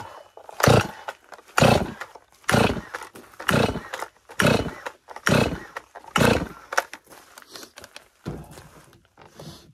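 Holzfforma G255 chainsaw's 45.4cc two-stroke engine being pull-started: about nine hard pulls on the recoil starter rope, roughly one a second, each a short rasping whir that falls in pitch. The engine turns over without catching, with no fuel yet drawn through.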